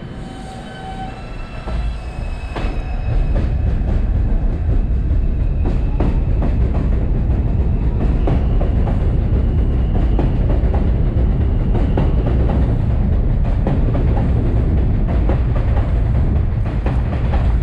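New York City Subway R142/R142A train pulling out and running past: a faint electric whine as it starts, building over about three seconds to a steady loud rumble with the rapid clatter of wheels over rail joints.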